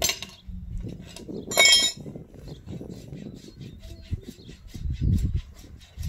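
Farrier's steel tools working a draft horse's hind hoof during shoeing: a ringing metallic clink about a second and a half in, then a run of light quick ticks, about three or four a second.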